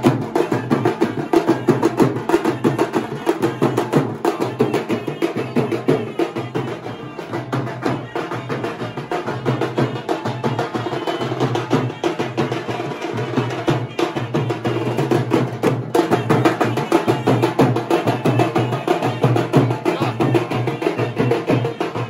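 Festival drums beaten rapidly with thin sticks in a dense, steady, loud rhythm.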